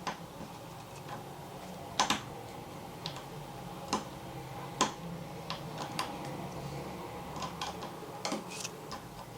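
Irregular small sharp clicks and taps of a screwdriver working on the propeller screws and plastic propeller blades of a DJI Mini 3 Pro drone as the propellers are unscrewed and pulled off, over a faint low hum.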